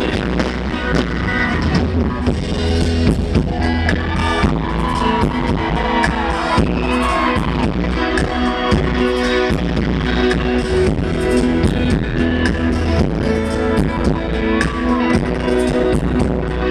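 Live band music amplified through a concert PA: strummed acoustic guitar over electric bass and drums, with a steady beat.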